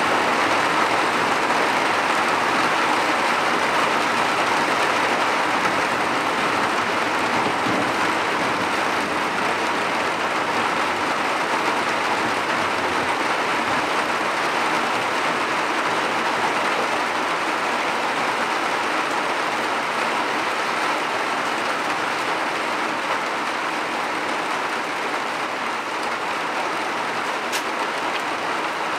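Heavy rain from a summer cloudburst: a steady, dense hiss of rain falling on ground and vegetation, growing slightly softer toward the end.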